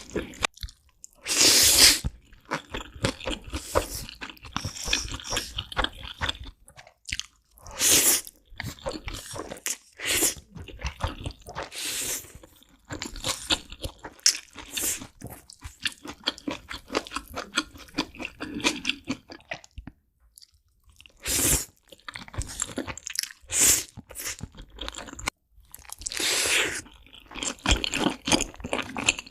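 A person biting into crunchy food and chewing it, with a loud crunch every few seconds and quieter crunching chews in between.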